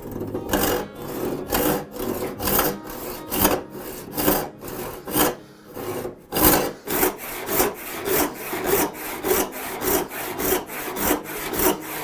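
A hand tool cutting wood with rhythmic back-and-forth strokes, about two to three a second, with a brief lull a little past halfway.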